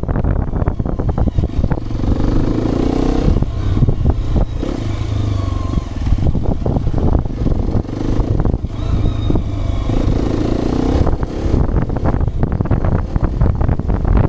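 Hero XPulse 210's single-cylinder engine running as the motorcycle is ridden over rough ground, its note climbing twice under throttle, with frequent rattles and knocks from the bike and wind on the microphone.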